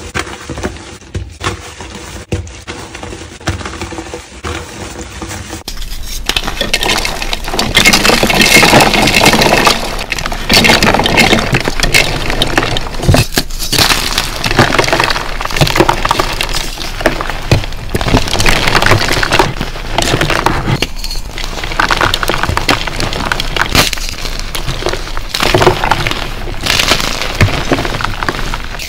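Hands crushing and crumbling blocks of dyed gym chalk and reformed chalk chunks: a dense run of crunches and crackles. For the first few seconds it is quieter, with hands squeezing soft powdery chalk.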